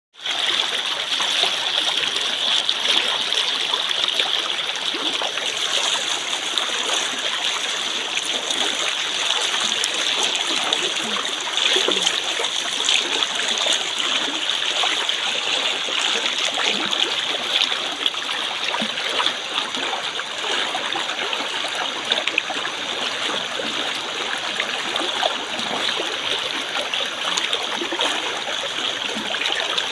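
Flowing water: a steady rush with small splashing trickles throughout.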